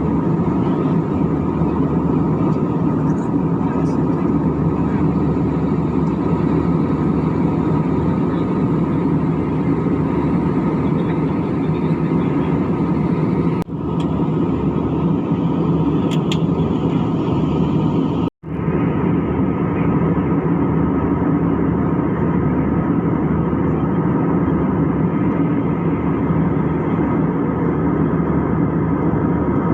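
Airliner cabin noise: the jet engines and airflow make a steady, loud roar with a few constant humming tones. It dips briefly about fourteen seconds in and cuts out for a moment just past the middle, after which it sounds duller.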